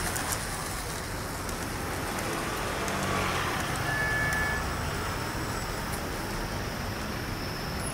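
H0-scale model trams running along the layout's track, their small motors and wheels giving a steady running noise over a constant background hum, with a brief faint high tone about four seconds in.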